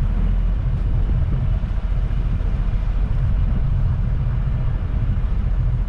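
A vehicle driving along: a steady low rumble of engine and road noise.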